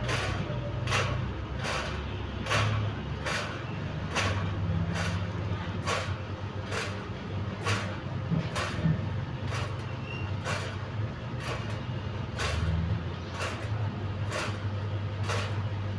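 A fan or turbine running with a strange, regular swishing scrape a little more than once a second, over a steady low hum.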